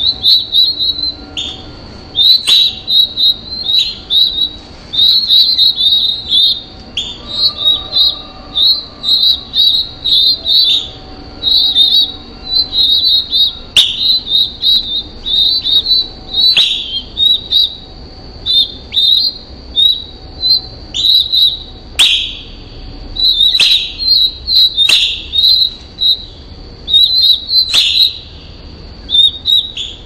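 Baby birds cheeping in rapid runs of short, high-pitched chirps, with a few sharp clicks among them.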